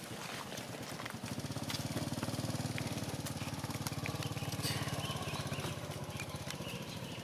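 A small engine running, with a fast even beat, growing louder about a second in and fading away near the end, with scattered light clicks around it.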